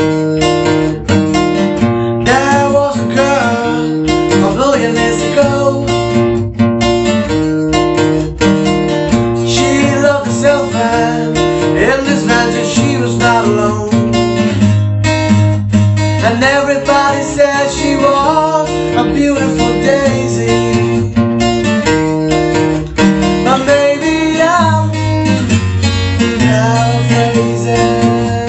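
Yamaha acoustic guitar strummed in a steady accompaniment, with two men's voices singing over it from about two seconds in.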